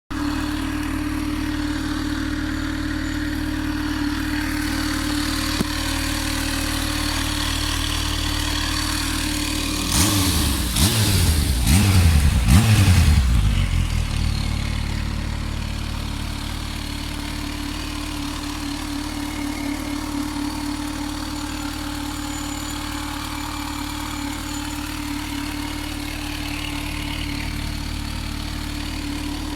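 Kawasaki Z H2's supercharged inline-four on its stock exhaust, idling steadily. About ten seconds in it is given a quick series of throttle blips, three or four short revs that rise and fall, before settling back to idle.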